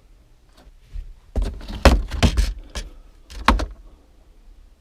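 A run of sharp knocks and clatters, about half a dozen over two seconds, as parts are handled while dismantling a car.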